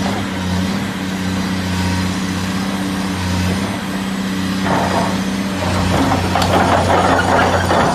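Caterpillar 336 hydraulic excavator's diesel engine running steadily. A little over halfway through, a louder, clattering mechanical noise joins in and carries on.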